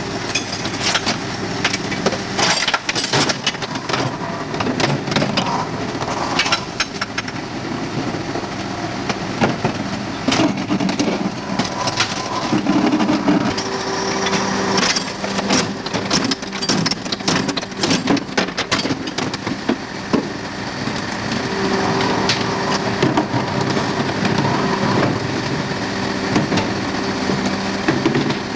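Faun Variopress rear-loader garbage truck running with a steady machine hum, over repeated knocks and clatters as waste bins are emptied into it.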